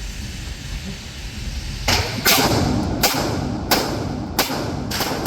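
Firearm shots: a string of about six sharp shots starting about two seconds in, roughly one every two-thirds of a second.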